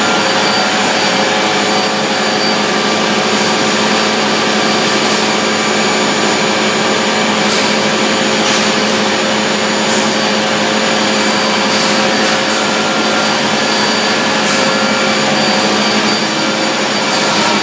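Pieralisi olive oil mill machinery and its centrifugal separator running: a loud, steady mechanical hum and whine with several held tones, and a few faint clicks.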